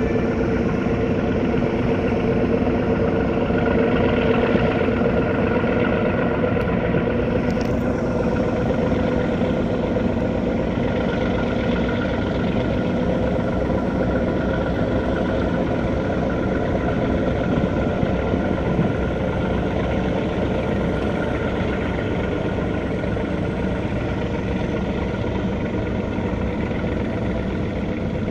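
Boat engine running steadily: a continuous drone with a faint steady hum over it.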